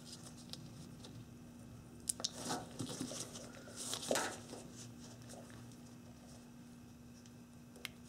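Gloved hands working a small plastic automotive connector as a crimped terminal is pushed into its housing to lock. Faint: a couple of sharp clicks about two seconds in, short scrapes and rustles of glove and plastic over the next two seconds, and one sharp click near the end.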